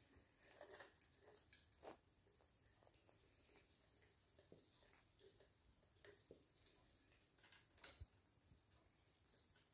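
Near silence with faint scattered clicks and scratches from an African grey parrot's beak and claws gripping the rope of a macramé plant hanger and the curtain rod as it climbs; the loudest click comes about eight seconds in.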